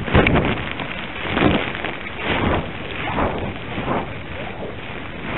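Wind buffeting the small microphone of a Veho Muvi camera riding on a power kite: a rushing noise that swells and falls in gusts about once a second.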